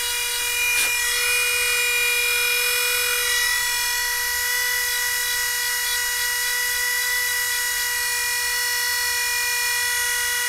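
Small handheld Minicraft rotary tool running at a steady high whine, its fine bit scuffing a small clear acrylic piece to roughen it so the resin will grip.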